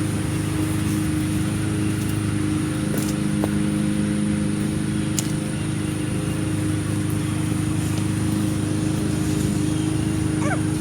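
Steady low drone of a running engine or motor, with a few faint clicks.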